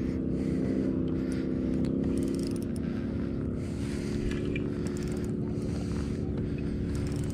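Steady low motor hum of several even tones that eases slightly about halfway through, with faint scrapes and ticks over it.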